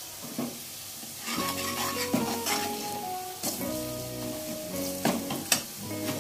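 Masala frying and sizzling in oil in a kadhai while a steel ladle stirs it, knocking and scraping against the pan several times. Soft background music comes in about a second in.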